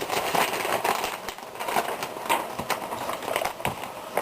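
Irregular light clicks and taps with rustling, a few to several a second.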